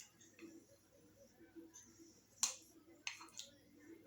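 Faint close-up chewing and mouth sounds of someone eating, with a sharp click about two and a half seconds in and a couple of smaller clicks after it.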